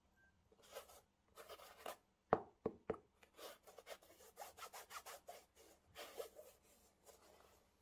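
Cotton-gloved hands handling and turning a Nike Air Max Tailwind V sneaker, the gloves rubbing and brushing over its mesh upper in short irregular strokes. Three quick knocks come a little over two seconds in.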